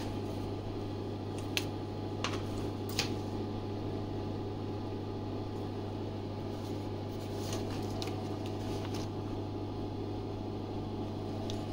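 A steady low machine hum, with a few light clicks and crackles of thin plastic stencil sheets being handled, about two seconds in and again around eight seconds.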